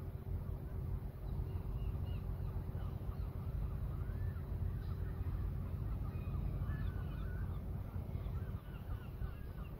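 A flock of birds calling over and over in short, bending notes, over a steady low rumble of wind.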